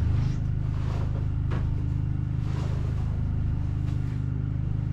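Portable generator engine running steadily, a low even hum, with a few brief rustles of clothing being handled.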